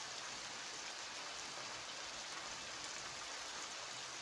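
Chicken pieces frying in hot oil in a frying pan: a steady, even sizzle.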